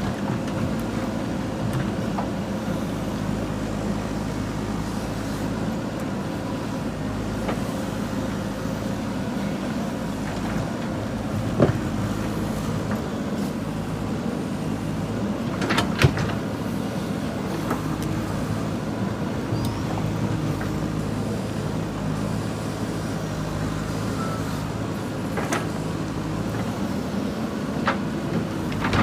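JCB 3DX backhoe loader's diesel engine running steadily under working load. A few sharp clanks break through it, about 12 and 16 seconds in and again at the end.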